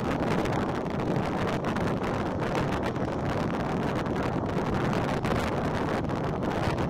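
Wind buffeting the microphone: a steady, even rushing rumble with no clear engine tone.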